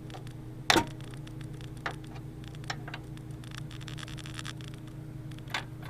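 A few sharp clicks and knocks from hands working parts loose inside a desktop computer case, the loudest about a second in, over a steady low hum.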